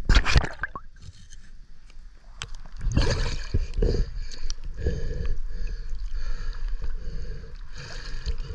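River water gurgling and splashing against the camera, with a few sharp knocks at the start; the water noise grows louder about three seconds in as the camera comes up out of the water.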